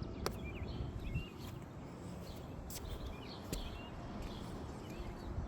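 Small birds chirping in short, repeated calls over a steady low outdoor rumble, with a few faint clicks.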